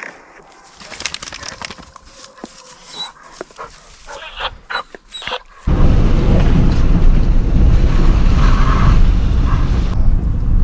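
Deer hounds yelping and baying in the distance over scattered clicks and rustles. About halfway through, a loud steady low rumble cuts in suddenly and covers everything else.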